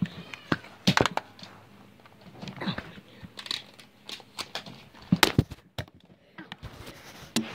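Irregular sharp clicks and knocks with rustling in between, the loudest about a second in and again about five seconds in.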